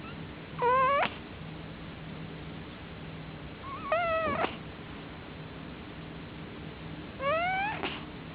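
A sleeping cat snoring, each breath coming out as a short, high, squeaky pitched sound. It happens three times, evenly about three seconds apart, each lasting about half a second, over a faint steady low hum.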